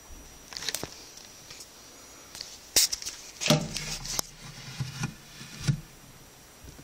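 Handling noise from a phone as it is moved and repositioned: scattered knocks and scraping rubs, densest a little past halfway through.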